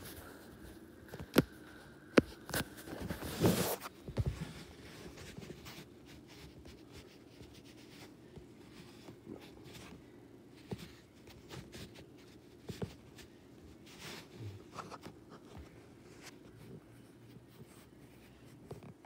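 Handling noise from a phone being carried around a room: scattered clicks and rubbing, with a louder rustle about three and a half seconds in, over a faint steady hum.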